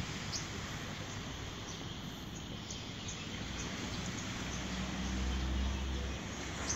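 Outdoor ambience with a steady hiss and scattered short, high chirps. A low engine hum swells about four seconds in and fades near the end.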